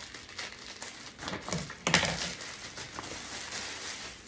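Clear plastic garment bag crinkling and crackling as it is handled and a garment is pulled from it, loudest about two seconds in.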